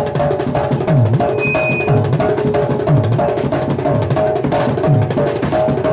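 Live aloukou band music: a steady drum beat with a low bass hit about once a second, under a fast riff of short repeated notes.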